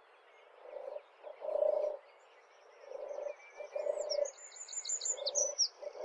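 European turtle dove singing: a gentle, low purring 'turr-turr', three pairs of purrs about two seconds apart. Other small birds sing faintly and higher in the background from about halfway.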